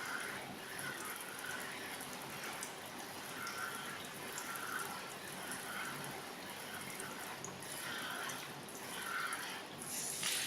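Water running steadily and splashing over a front-load washing machine's touch control panel, with scattered drips.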